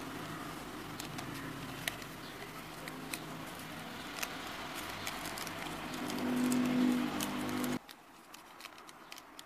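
Parchment paper crinkling and rustling as it is wrapped and pressed around a miniature sushi roll, with scattered small clicks from the fingers handling it. A low steady hum runs underneath, swells near the end and cuts off suddenly about eight seconds in.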